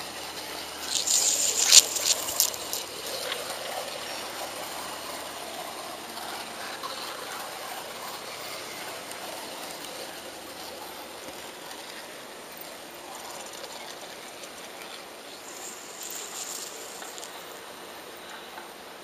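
HO-scale model train running along its track: a steady rushing noise, with a brief clatter of sharp clicks about two seconds in.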